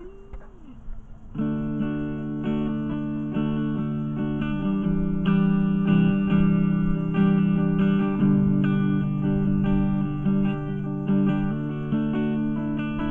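Bunyip T1 Telecaster-style electric guitar played through an amplifier: a riff of strummed chords that ring on and change every second or so, starting about a second and a half in.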